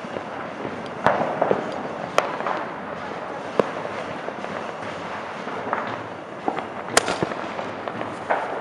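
Fireworks going off: about four sharp bangs spread through, over a constant background crackle of firecrackers.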